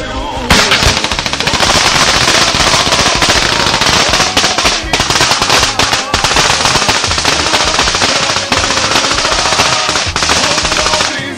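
Sustained automatic gunfire from a combat recording: long, rapid bursts of shots that overlap, starting about half a second in, with a song faintly underneath.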